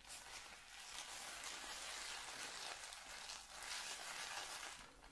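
Shaving soap being whipped into a thick foam: a steady, wet swishing of the lather.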